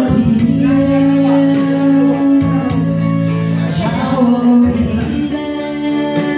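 A woman singing karaoke through a microphone over a backing track, holding long sustained notes.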